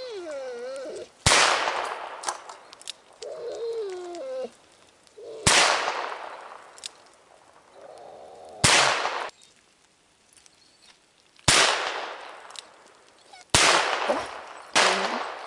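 Six shots from a nine-shot JC Higgins .22 revolver fired one-handed, each a sharp crack with a short ringing tail. They come at uneven gaps of one to four seconds, and the last two are close together.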